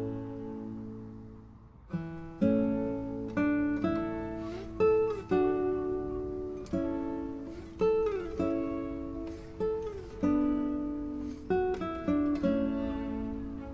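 Background music: an acoustic guitar playing a slow melody of plucked notes, each ringing and fading, with a few sliding notes.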